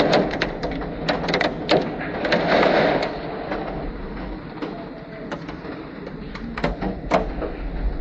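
Storm noise of wind and rain with many sharp, irregular clicks and knocks of hailstones striking hard surfaces, heaviest in the first few seconds.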